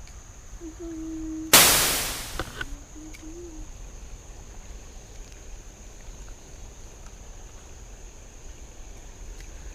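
Steady high-pitched insect buzz over the creek. About a second and a half in, a sudden loud splash of water that dies away within about a second.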